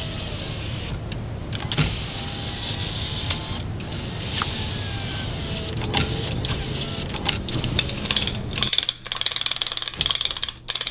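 Chrysler LeBaron convertible's electric rear-window motor running steadily with a low hum and a few faint squeaks. About nine seconds in the sound cuts to light clicks and clatter of small metal parts being handled.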